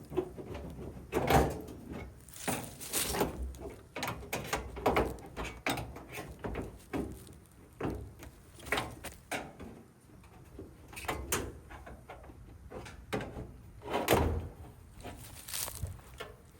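Irregular sheet-metal knocks, clanks and rattles as the front panel of an appliance cabinet is worked off with a screwdriver. The loudest knocks come about a second in and near the end.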